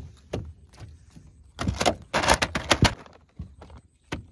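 Sharp knocks and clattering on the wooden boat as a hooked eel is swung aboard and thrashes, with a quick, dense run of hits in the middle and one more knock near the end.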